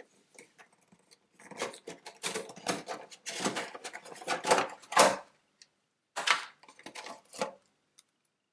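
A white plastic tray insert being lifted out of a cardboard board game box and a cardboard card handled: a run of irregular plastic clicks and rustles, loudest about five seconds in.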